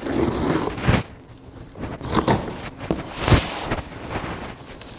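Scissors cutting open the packing tape of a cardboard box, with cardboard scraping and rustling and a few sharp knocks.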